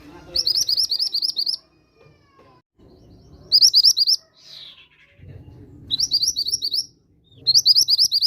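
Burung mantenan gunung singing: four bursts of rapid, high chirping notes, each a quick run of about ten notes, with short pauses between the bursts. A faint low rumble comes and goes underneath.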